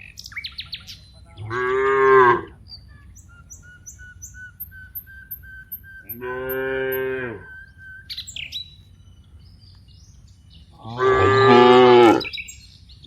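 Cows mooing three times, each call about a second long, the first and last loudest, with small birds chirping between the calls.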